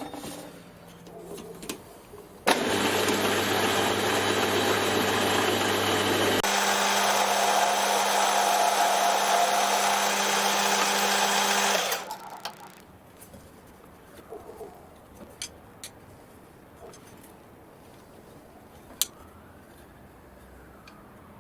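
Small metal lathe running under power for about nine seconds: it starts suddenly, its tone shifts partway through, and it cuts off sharply. Faint taps and clicks of metal parts are handled before and after the run.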